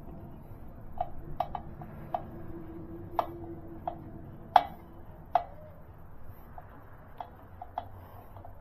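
Phillips screwdriver turning a long screw into the air filter, giving about a dozen sharp, irregular metal clicks and ticks. The loudest click comes a little past halfway.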